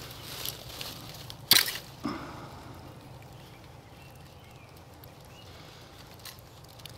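Plastic parts of an Irritrol irrigation valve clicking and knocking as its bonnet is unscrewed and lifted off: one sharp click about a second and a half in, a softer one half a second later, then quiet handling.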